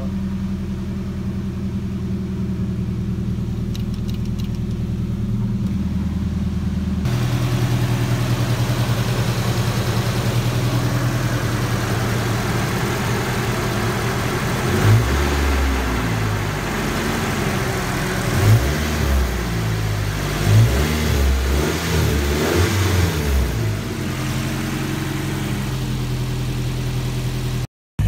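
Nissan 240SX's KA24DE four-cylinder engine running in neutral: a steady idle that steps up to a faster idle about seven seconds in, then several quick revs up and back down over the second half before it settles again. The engine now revs freely, without the earlier cut-off near 3,000 rpm that the owner puts down to low transmission fluid.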